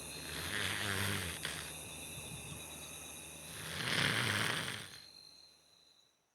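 A man snoring: two long rasping snores about three seconds apart, a racket over faint steady high tones, fading out near the end.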